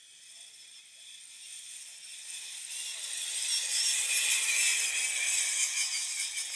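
Pulley trolley carrying a load of logs running down a long steel skyline cable: a high whirring hiss with a singing whine that grows steadily louder over about four seconds, then holds.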